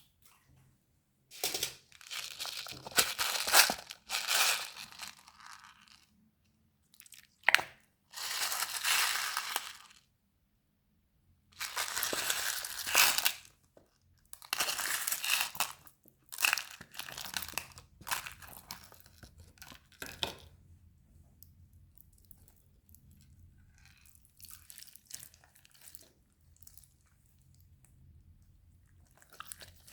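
Slime being worked by hand, stretched, pressed and mixed, in bursts of crackly, crunchy noise a few seconds long with short pauses between, fading to softer crackling in the last third.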